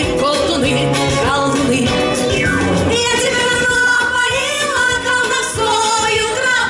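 Women's vocal group singing into microphones over a live wind band accompaniment, amplified through the stage sound system.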